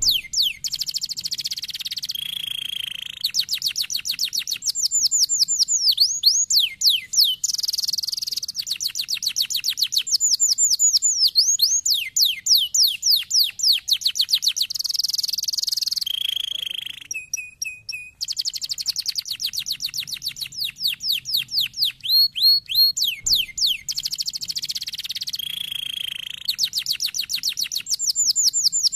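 Domestic canary singing: fast trills of rapidly repeated notes alternating with quick falling whistled sweeps, in phrases a few seconds long. A little past halfway there is a short break with a brief steady note before the song resumes.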